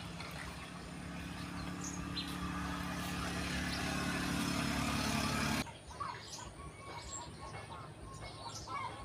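A steady engine hum that grows louder, then cuts off abruptly a little past the middle; after it, birds chirping.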